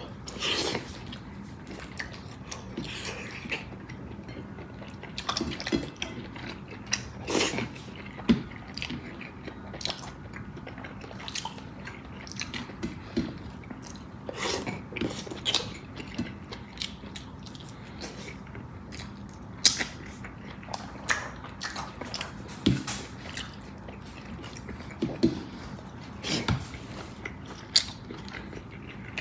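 Close-up eating sounds of a person eating bulalo, a Filipino beef shank soup: irregular chewing and wet mouth sounds with sharp clicks and smacks scattered throughout.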